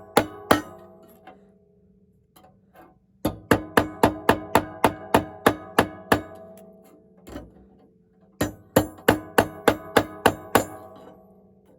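A hammer striking hot rebar steel on an anvil while forging a knife blade, each blow ringing metallically. The blows come in quick runs of about four a second: a few at the start, a long run of over a dozen a few seconds in, and another run of about nine near the end.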